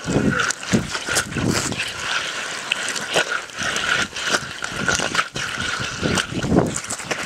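Irregular crunching steps on ice-covered ground, with uneven low rumbles on the microphone and scattered short clicks.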